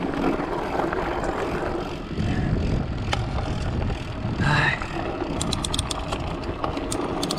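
Steady rumbling drone of riding along a rough off-road track, with wind on the microphone; a short rising tone comes about four and a half seconds in, and a run of small sharp clicks near the end.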